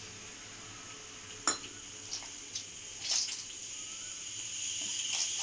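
Wet dough of maida, fine semolina and oil being mixed by hand on a steel plate while water is added little by little from a steel tumbler, with one sharp metallic clink about a second and a half in and a few lighter taps after it. A steady hiss grows underneath in the second half.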